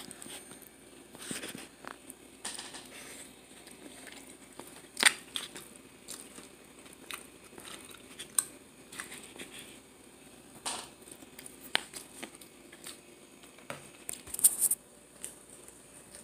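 Scattered small clicks, taps and crinkles of eating and handling, with the sharpest click about five seconds in and a cluster near the end.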